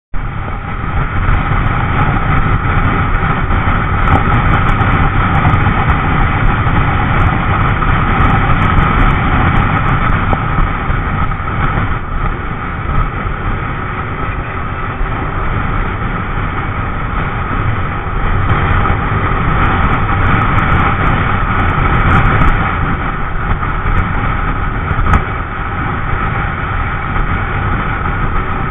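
Wind rush on the microphone over a motorbike's engine, riding steadily at road speed.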